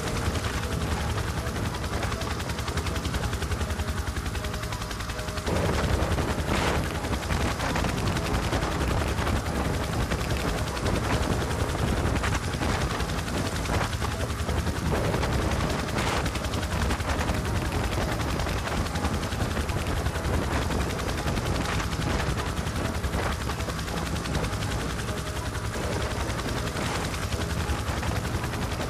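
Black Hawk helicopter running on the ground close by: a fast, steady chop of the rotor blades over a rushing noise. It gets louder about five seconds in.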